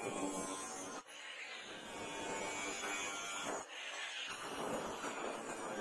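Angle grinder running, its abrasive disc grinding and sanding a steel katana blade: a steady motor whine mixed with the rasp of the disc on the steel. The sound breaks off abruptly about a second in and again near four seconds.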